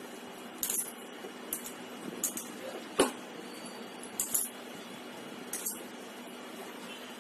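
Hand-mixing mashed potato with spices in a Healux steel pot: scattered light metallic clinks and taps against the pot, about six in all, the loudest about three seconds in, over a steady low hum.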